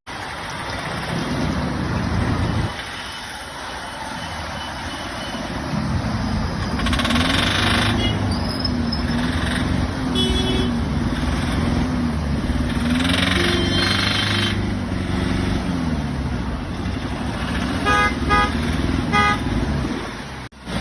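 Mahindra Scorpio's 2.2-litre mHawk four-cylinder diesel engine being revved up and let fall back several times, running with a knock that the mechanic puts down to faulty tappet bullets (hydraulic lifters). A few short high beeps come near the end.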